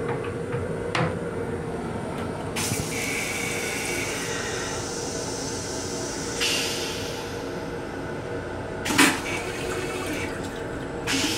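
Metro-North M7 railcar toilet flushing: water hisses into the stainless steel bowl in two spells, then a sudden loud rush about nine seconds in empties the bowl, and a second short rush comes near the end. The train's steady rumble and hum run underneath.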